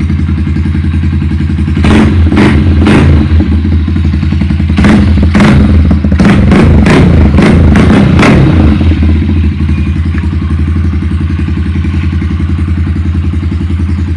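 Rusi KR150 motorcycle engine running steadily just after an electric-start restart. From about two seconds in to about eight seconds in it gives about a dozen short, sharp, loud bursts, like quick throttle blips through its muffler.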